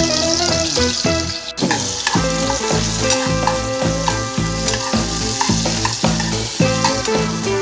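Rice and vegetables frying in oil in a saucepan, sizzling as a silicone spoon stirs them, under background music with a steady beat.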